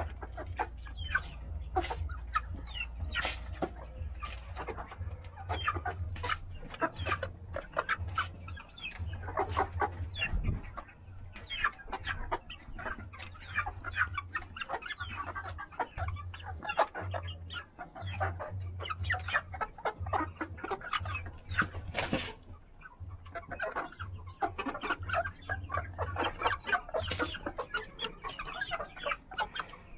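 A mixed flock of hens clucking continuously while feeding, with many short, sharp clicks throughout and one louder click a little after two-thirds of the way in.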